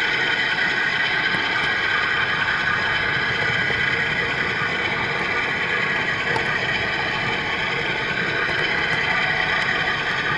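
HO-scale model train running steadily along the track: an even mechanical hum that holds at one level with no change in speed.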